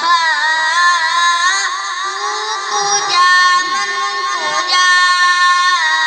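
A song: a high voice singing a winding, ornamented melody over a steady low accompanying tone.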